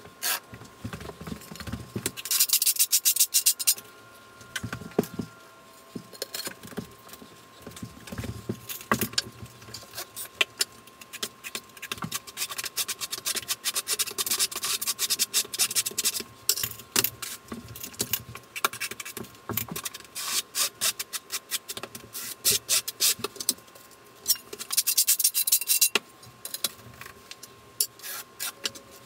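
Steel notched trowel scraping and combing thinset mortar across the Schluter Ditra membrane, in rapid scraping strokes, with two louder spells of scraping: one a couple of seconds in, one near the end.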